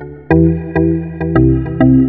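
Background music: pitched notes struck about twice a second, each one fading before the next.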